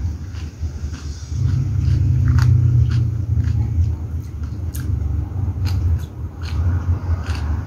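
Close-up eating sounds: chewing and small mouth clicks from someone eating with her fingers, over a steady low rumble that is loudest from about a second and a half in to about four seconds.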